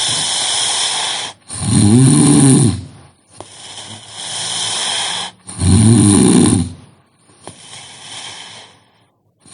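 A person snoring in their sleep: two loud, deep pitched snores about four seconds apart, each followed by a long hissing breath, in a slow steady rhythm.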